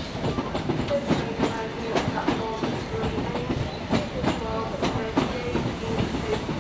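High Speed Train (InterCity 125) Mark 3 coaches rolling past as the train arrives, wheels clattering over rail joints in a quick, uneven run of clicks, with short ringing tones mixed in.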